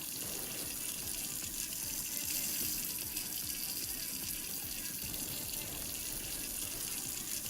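Steady hiss of water spraying from a hose-fed flying water-rocket toy as its jets throw water up like a fountain.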